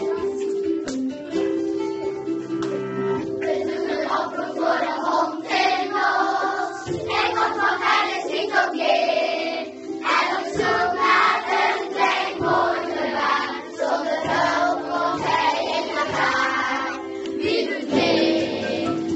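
A class of primary school children singing a cup song together in chorus, over a plucked string accompaniment.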